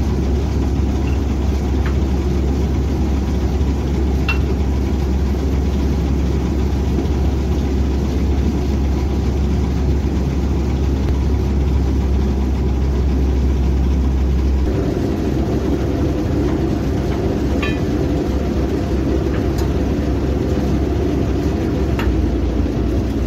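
Combine harvester's diesel engine running steadily after repair. About fifteen seconds in the deep hum drops away and a busier, higher mechanical note takes over, with a few light clicks.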